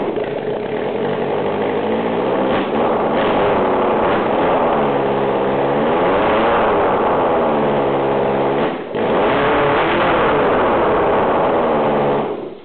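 Freshly started Yamaha FZR600 inline-four motorcycle engine, running off the bike, revved up and down several times with the throttle, with a brief dip near the middle. The engine sound cuts off suddenly near the end.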